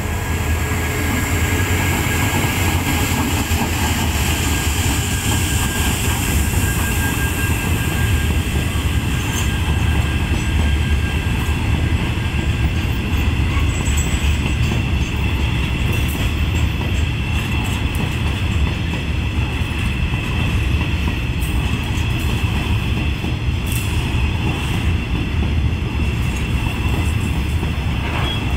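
Freight train of urea wagons rolling past close by: a loud, steady rumble of wheels on rail with no let-up, with a thin, steady high-pitched wheel squeal running over it.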